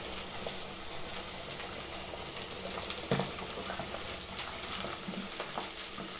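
Thin chicken gravy simmering with a steady bubbling hiss while ground coconut paste is tipped in and stirred with a steel ladle, with a few light ladle knocks against the pot, the clearest about three seconds in.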